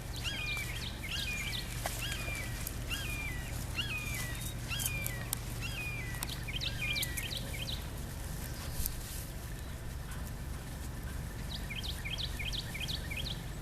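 A bird calling outdoors: a long series of short chirps, about two a second, which pauses midway and comes back near the end as a quicker run of rising notes. A steady low rumble sits underneath.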